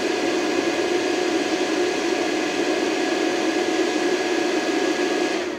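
Cooling fan of a KickAss 22 A smart battery charger running steadily while charging at full rate, a loud even hum. Right at the end it starts to wind down as quiet mode cuts the charge to 5 amps.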